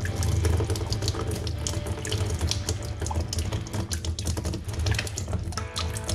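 Engine oil pouring in a steady stream from the open drain hole of a Chevrolet Silverado's oil pan, splashing as it falls into the catch funnel.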